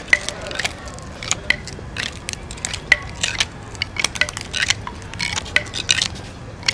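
Rapid, irregular clicks, clinks and crunches, several a second, some with a brief ringing tone, like hard small objects being stirred or crushed together.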